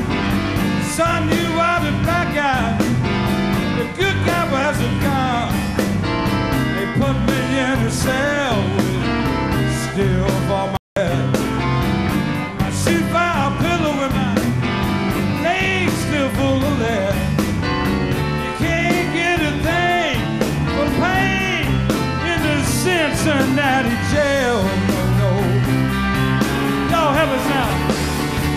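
Live blues-rock band with a Flying V electric guitar playing a lead break full of bent notes over electric bass and rhythm. About eleven seconds in, the sound cuts out completely for an instant, a tape dropout.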